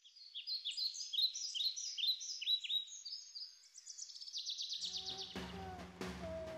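Birds chirping in an overlapping chorus of short downward-sweeping notes that ends in a fast trill. About five seconds in, music comes in with a steady low drone and drum hits.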